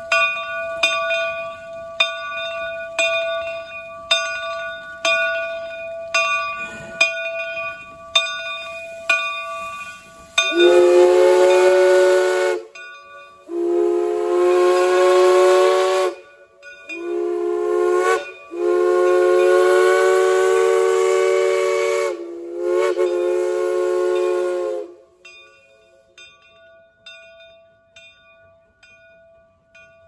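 Shay geared steam locomotive's bell ringing steadily, then its steam whistle blowing long, long, short, long, the grade-crossing signal, with the last blast drawn out. The bell keeps ringing faintly after the whistle stops.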